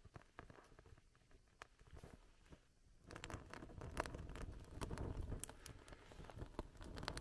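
Dry dead conifer twigs and needles catching fire, crackling with small sharp pops. From about three seconds in, a louder rushing joins as someone blows on the glowing embers to bring the kindling to flame.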